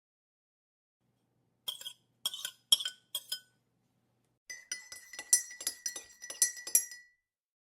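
Glassware clinking in a kitchen: four separate light clinks, then a quicker run of about ten clinks over a steady ringing tone from the glass, which stops just after the clinking ends.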